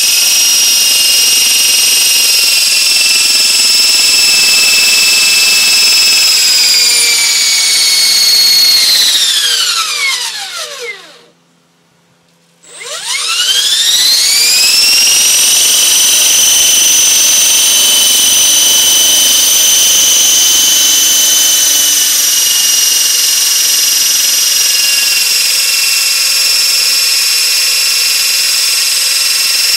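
Electric RC helicopter's motor and redesigned gearbox with its 130-tooth main gear, running on a test run with a steady high-pitched gear whine. About eight seconds in it winds down to a stop, is silent for a second or two, then spins back up to the same steady whine.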